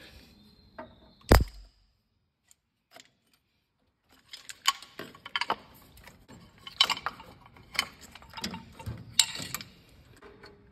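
Hand work on an old jeep engine's ignition parts, the distributor cap and its plug leads: a sharp click about a second in, then a run of irregular small metallic clicks and clinks.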